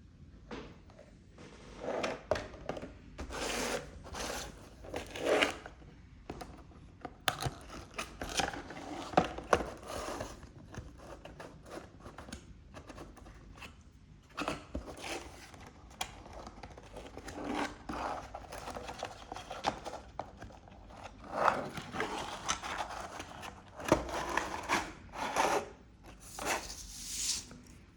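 Product packaging being handled and opened by hand: irregular bursts of rustling and scraping with occasional sharp clicks.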